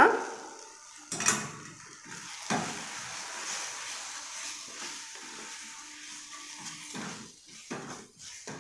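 A spatula stirring and scraping thick onion-tomato masala with spice powders in a stainless steel kadai, knocking against the pan a few times, over a faint sizzle of the frying mixture.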